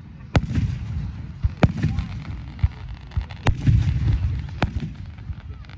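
Fireworks bursting at close range: four sharp bangs a second or two apart over a continuous low rumble of booms.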